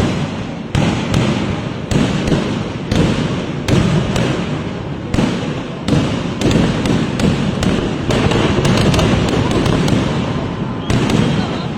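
Festival fireworks display: a rapid, continuous barrage of loud aerial shell and firecracker explosions, several bangs a second, each one rumbling on into the next, the blasts running together almost without a break a little past the middle.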